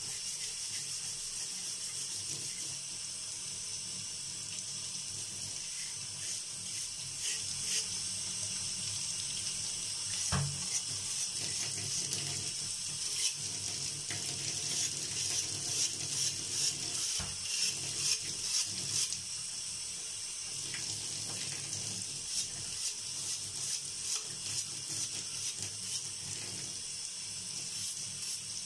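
Tap water running steadily while a stiff brush scrubs a small metal jug held under the stream, in quick rasping strokes that come thick and fast for much of the time. A single dull knock about a third of the way through.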